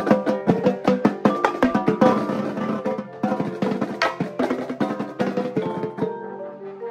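Marching band percussion playing: drums struck in fast, dense patterns over marimbas and other mallet percussion playing pitched notes. About six seconds in the drums drop out and only held mallet notes carry on.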